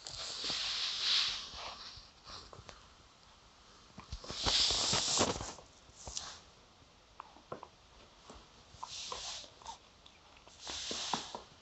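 Yorkshire terrier puppy breathing and sniffing in four short hissy bursts a few seconds apart, with light clicks in between.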